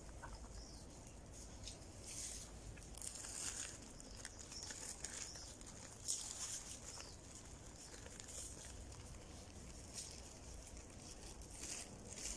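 Wild boars rooting and stepping through dry leaf litter: faint, irregular rustling and crackling, with a sharper snap about six seconds in.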